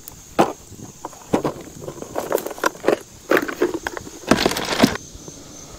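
Newly lit campfire of small twigs and paper crackling, with irregular sharp snaps and a quick flurry of pops about four and a half seconds in, as the kindling catches.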